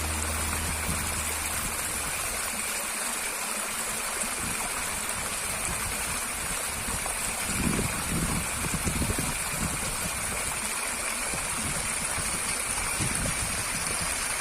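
Waterfall's water rushing in a steady, even hiss, with a few low rumbles about halfway through.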